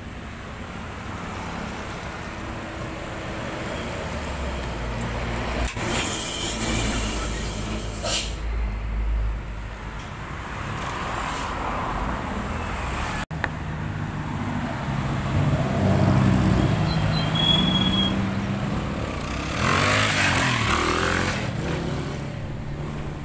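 Heavy diesel tractor-trailer engine running steadily as the rig hauling a loaded excavator lowboy moves off, with two short bursts of hissing air from its brake system.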